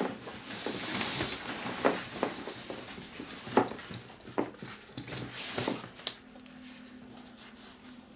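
Rustling and handling noise of a camera bag and its packaging being unpacked, with several sharp clicks and knocks. The handling stops about six seconds in, leaving a faint steady low hum.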